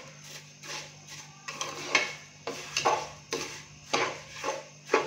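Wooden spatula stirring and scraping sugar moistened with a little milk around the bottom of a nonstick pot, in repeated strokes about two a second, as the sugar is worked to melt into syrup.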